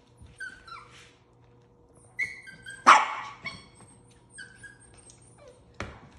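Seven-week-old Havanese puppies yipping and barking in play: a string of short, high-pitched yips, several falling in pitch, with one loud bark about three seconds in and another sharp bark near the end.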